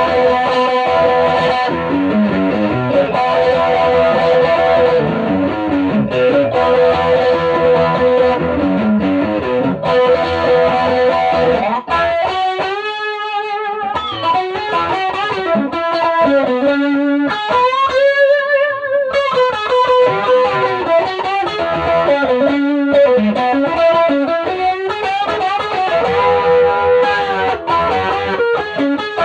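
Electric guitar played through a 1965 WEM Control ER15 valve amplifier with push-pull EL84 output valves: a clean-to-lightly-driven melodic passage with sustained notes, two of them about halfway through held with wide vibrato.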